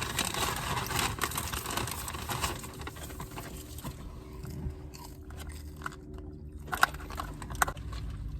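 Chewing and crunching on a crispy fried chicken sandwich, busiest in the first couple of seconds, with two short clicks near the end.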